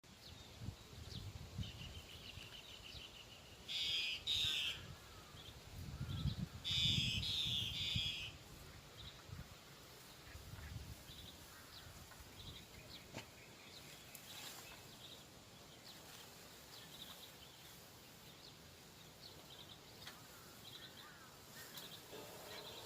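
Gusts of wind buffeting the microphone ahead of rain, with birds calling: two loud bouts of harsh calls about four and seven seconds in, and small chirps repeating throughout. The wind dies down in the second half.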